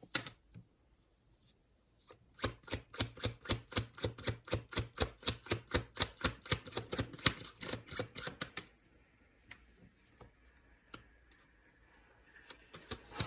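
Tarot cards being shuffled by hand: a run of quick, even card slaps, about five a second, lasting some six seconds, followed by a few scattered taps.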